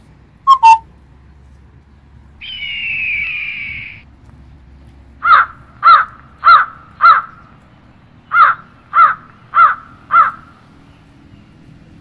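Bird calls: two short sharp notes near the start, a drawn-out harsh falling screech about two and a half seconds in, then two series of four loud, harsh calls, a little under two a second.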